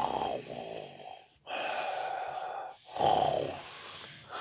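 A person imitating snoring: three long, breathy snores in a row.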